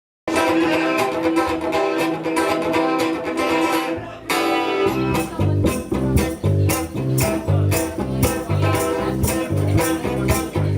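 A live band playing a song's instrumental intro. Strummed guitar starts abruptly, and a pulsing bass line and drums join a little before halfway, keeping a steady beat.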